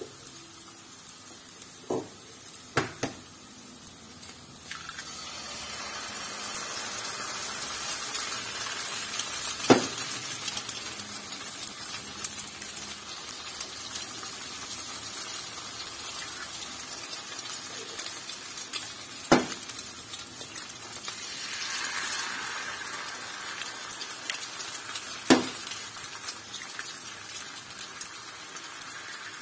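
Eggs frying in a hot pan with sliced sausage and green pepper: a sizzle that swells once the first egg goes in, about five seconds in. Over it come a few sharp knocks of eggs being cracked on the pan's rim, the loudest about a third of the way in, two-thirds in and near the end.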